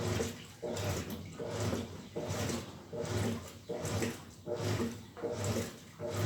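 GE In•telligence 10 kg washing machine agitating on a low water level and duvet cycle. The motor hums and the water and load slosh in even strokes, the wash reversing about every three-quarters of a second.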